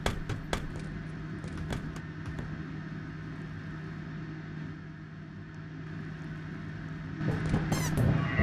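A steady low hum over a rumble, with a few sharp clicks in the first second; more sound builds up near the end.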